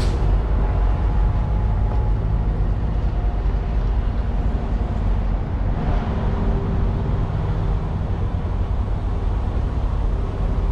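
Semi truck's diesel engine idling steadily, with a sharp click at the start and a lighter knock about six seconds in.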